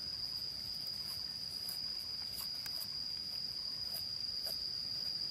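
A steady, high-pitched drone of insects, one unbroken tone, with a few faint clicks over it.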